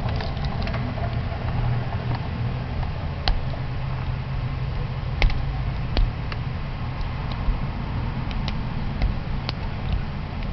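Small stainless steel discus padlock being single-pin picked with a hook pick: irregular sharp metallic clicks and ticks as the pick works the pins and the plug, over a steady low hum.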